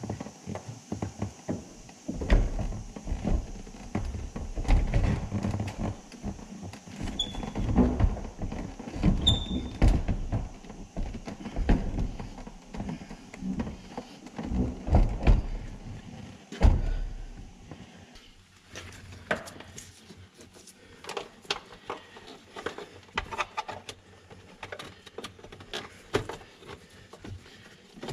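Heavy steel pickup truck door being worked on its hinges: a busy run of knocks and clunks with a couple of brief squeaks, easing about two-thirds of the way through into lighter, scattered clicks.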